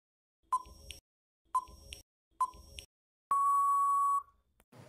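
Countdown timer sound effect: three short beeps about a second apart, then one long beep of about a second marking time up.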